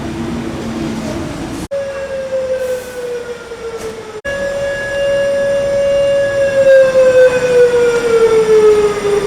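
Malfunctioning fire-alarm siren sounding like a civil-defense siren. One loud tone slides slowly downward, cuts off sharply, then returns higher and slides down again. It is preceded by a steady low hum.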